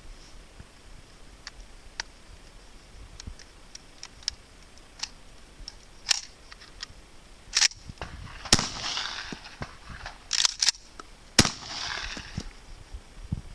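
Hatsan Escort Aimguard pump-action shotgun being handled: faint clicks at first, then from about six seconds in a run of sharp metallic clacks, two in quick succession, with short sliding scrapes, as shells are loaded and the action is worked.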